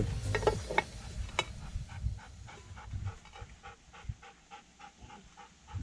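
A few sharp metallic clinks of a lid lifter on the lid of a cast-iron Dutch oven, then a dog panting steadily, about three breaths a second.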